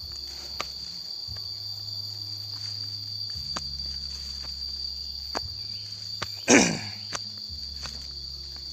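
Insects chirring in one steady high-pitched tone, with scattered footsteps on a stony footpath. One brief loud swish, falling in pitch, comes about six and a half seconds in.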